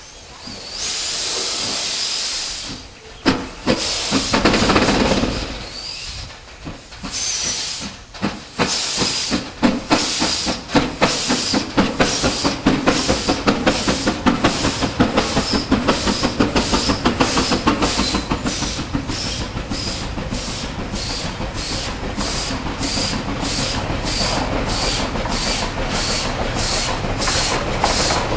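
C2 class 0-8-0 narrow-gauge steam locomotive starting a coal train. First comes a hiss of steam, with a louder burst about four seconds in. Then come steady, sharp exhaust beats that quicken to about two or three a second as it works towards the listener.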